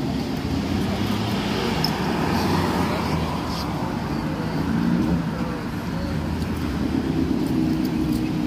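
City transit bus approaching along the street, its engine humming steadily over general traffic noise, the hum growing stronger near the end as the bus nears. Background voices of people waiting.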